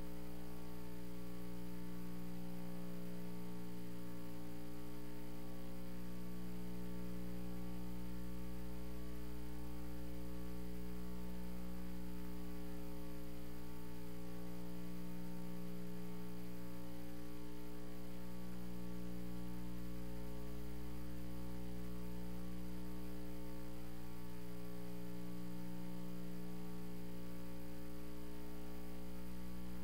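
Steady electrical mains hum, a low drone with a stack of overtones, with nothing else standing out over it.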